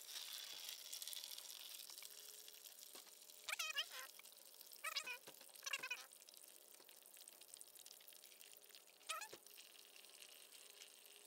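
Windshield washer fluid pouring in a stream from the car's washer reservoir and splashing into a plastic drain pan, loudest in the first couple of seconds and then fainter as the reservoir empties. A few short pitched animal cries cut in several times over the pouring.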